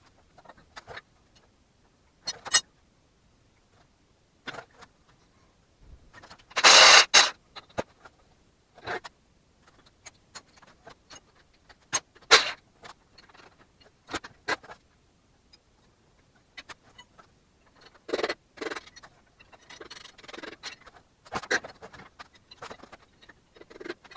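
Tools and metal engine parts clinking, knocking and scraping as an LS V8 short block is taken apart, in irregular short knocks with a longer, louder scraping clatter about seven seconds in.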